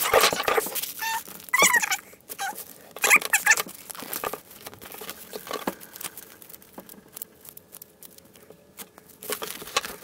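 Plastic wrapping being picked at, torn and crinkled off a magazine by hand. There are sharp rustles with a few squeaks in the first few seconds, then quieter scratching, then crinkling again near the end.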